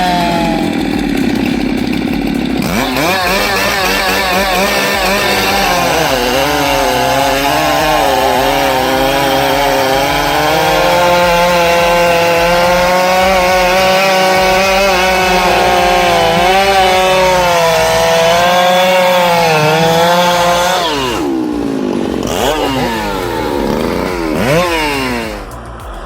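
Two-stroke chainsaw running at high revs in a cut through wood, its pitch wavering slightly as the chain loads. Near the end the revs fall and rise in a few quick blips.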